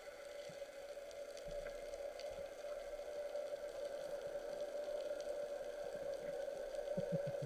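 Underwater ambience: a steady hum with faint scattered clicks, and a few low thumps near the end.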